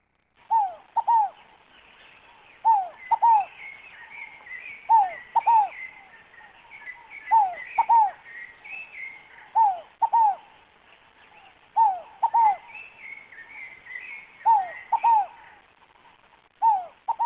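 Scaled dove (rolinha fogo-apagou) cooing: short falling coos in pairs, repeated about every two seconds. Fainter, higher twittering from small birds runs between the coos.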